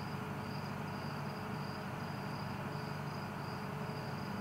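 Cricket chirping steadily, a high thin trill broken into chirps about twice a second, over a steady low hum.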